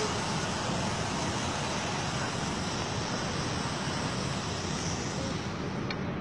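Steady, even outdoor background noise on a phone recording at night, with no distinct event and one faint click near the end.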